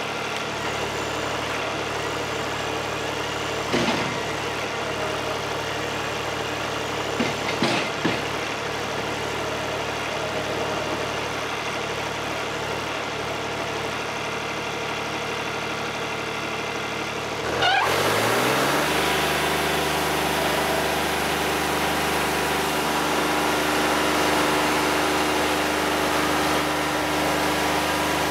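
Wood-Mizer LT50 Wide sawmill engine idling steadily, with a few sharp metal clanks in the first eight seconds. About two-thirds of the way through, the engine speeds up and the mill runs louder at the higher speed.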